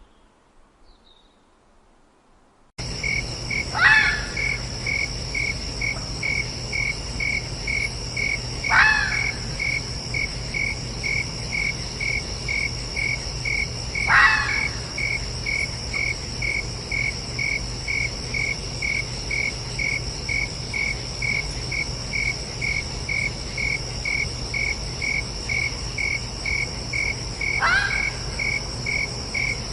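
Steady rhythmic cricket chirping, about two chirps a second, starts suddenly about three seconds in. Over it, a fox gives a short cry that falls sharply in pitch, repeated every five seconds or so; these cries are the loudest sounds.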